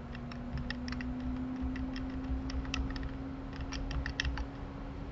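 Computer keyboard keys clicking at an irregular pace as Ctrl+Z is pressed again and again, over a steady low hum.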